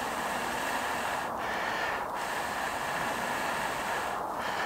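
A steady, even outdoor background hiss with no distinct sound standing out.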